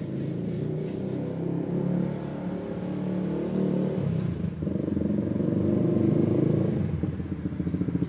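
Single motorcycle exhaust note from a sport bike fitted with a LeoVince Cobra aftermarket exhaust, rising and falling with the throttle as it rides at low speed and grows louder as it comes close. Near the end it settles into a steady, pulsing low-speed putter.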